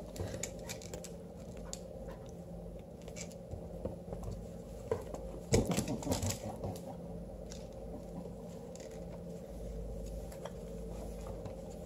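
Faint scuffling and light clicks of a kitten and a small beagle playing on a hardwood floor: paws and claws skittering on the boards, over a steady low room hum. There is a slightly louder flurry of scuffling about halfway through.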